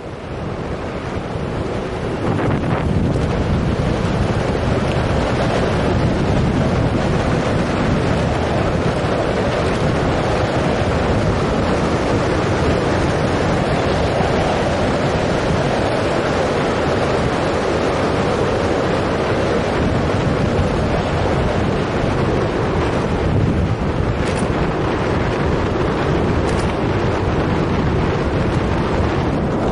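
Wind rushing over the microphone of a bike-mounted action camera while riding: a loud, steady roar of wind noise that swells about two seconds in.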